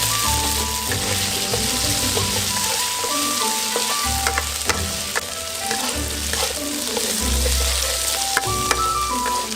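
Food sizzling and frying in hot oil in a pan, stirred with a utensil that clicks against the pan now and then, under light background music with a simple melody.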